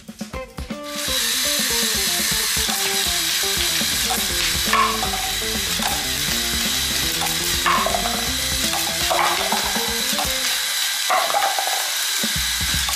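LEGO Mindstorms toy gun's motor-driven twin-wheel launcher spinning up about a second in and running with a steady mechanical whir, with a few short clacks as balls are fired.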